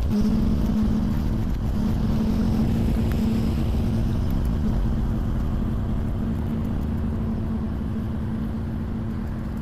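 Heavy equipment's engine running steadily at a constant speed, with a steady hum.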